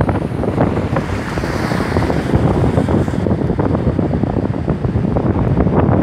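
Strong storm wind gusts buffeting the microphone, a loud, rough, uneven rush with a hissing swell about two seconds in.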